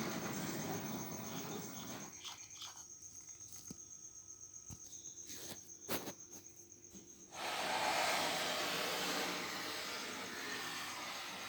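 DCC-chipped model railway locomotive running along the track: a faint high steady whine with light regular clicking, then a louder running noise from about seven seconds in.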